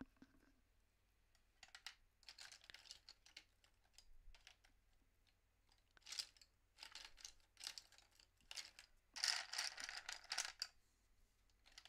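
Quiet scratching and rustling in short bursts from colored pencils and paper being handled at the drawing desk. The longest and loudest stretch runs from about nine to ten and a half seconds in.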